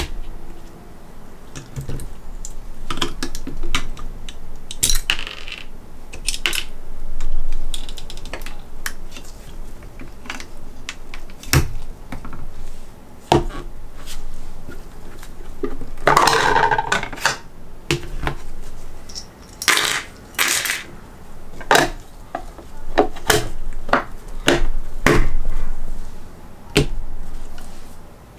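Irregular clicks, snaps and clinks of hard plastic and metal action-figure parts being fitted and handled, armor pieces snapping onto a metal-frame mecha figure. There are a few longer rattling clatters of parts about halfway through.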